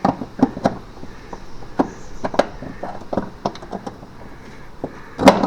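Irregular clicks and knocks as a shifter cable and its hardware are handled and fed under a car's carpet, with one louder knock about five seconds in.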